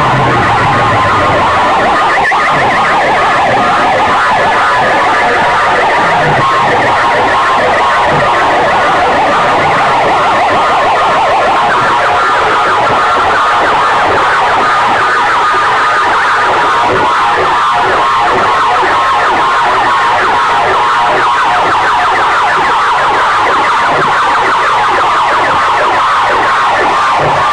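Massed horn loudspeakers at a sound-system competition blasting a distorted, siren-like wailing sound at full volume, with almost no bass.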